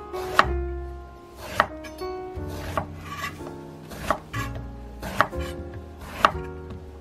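Kitchen knife chopping eggplant on a wooden cutting board: a sharp knock of the blade meeting the board about once a second. Light background music with a stepping melody plays underneath.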